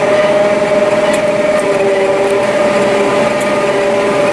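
Self-propelled forage harvester heard from inside its cab while chopping maize: a steady running drone with a constant whine.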